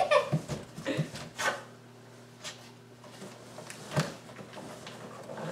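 Large cardboard shipping box being handled and opened: a series of scrapes, rustles and knocks on the cardboard, busiest in the first second and a half, with a sharp knock about four seconds in.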